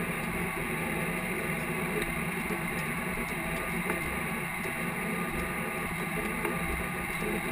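Case IH tractor's diesel engine running steadily under load as it pulls a field cultivator.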